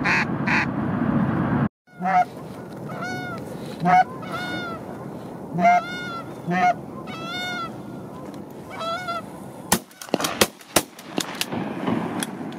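Canada geese honking: a run of repeated two-part honks, each starting low and breaking upward, about one every half second to a second. About ten seconds in, several sharp cracks come in quick succession.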